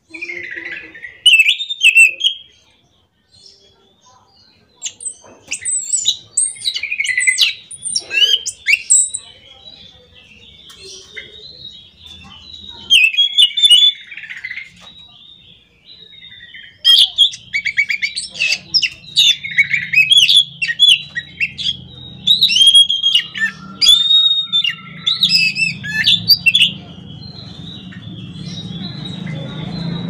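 Caged anis macan thrush singing a continuous, varied song of whistles, trills and quick chattering phrases, broken by short pauses. A low rumble builds near the end.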